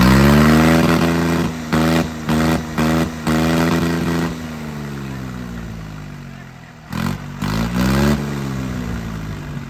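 Tractor diesel engine revved up and held at high speed, its level dipping briefly several times, then slowing back down to a low idle. About seven seconds in it is revved once more, briefly, and falls back again.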